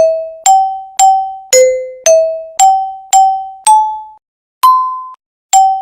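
A simple melody played one note at a time on a bell-like mallet instrument such as a glockenspiel, about two struck, ringing notes a second. It climbs in steps and repeats, with a short pause after about four seconds.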